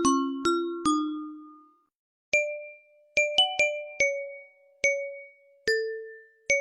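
An iPhone ringtone melody in bell-like mallet tones. A fast run of two alternating notes ends about a second in, then after a short pause a slower tune of single struck notes rings out, each fading away.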